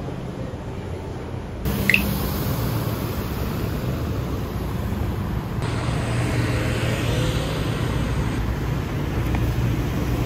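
Steady city street background noise with a low traffic hum, changing abruptly where clips are joined about two and six seconds in. A short high chirp sounds about two seconds in.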